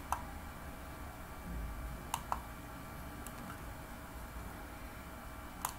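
A few faint computer mouse clicks: one at the start, a quick pair about two seconds in, and one near the end, over a low steady electrical hum.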